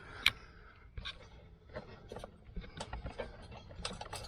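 Light clicks and taps from hands handling the carburetor and choke linkage of a small lawnmower engine, with one sharper click about a quarter of a second in.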